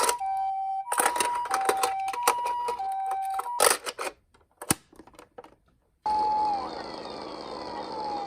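Toy ambulance minicar's electronic hi-lo siren sounding the Japanese ambulance 'pee-po' pattern, a high and a low tone alternating, with plastic clicks and rattles from the toy being handled. It stops after about three and a half seconds, a few clicks follow, and about six seconds in another electronic siren starts, a held tone that slides slowly downward.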